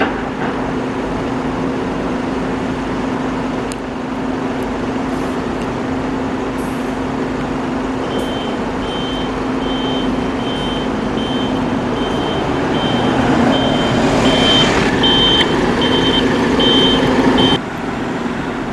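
Diesel buses running with a steady engine hum. About eight seconds in, a vehicle's reversing-style warning beeper starts, a high beep about three times every two seconds. Near the end the beeping and much of the engine noise cut off suddenly.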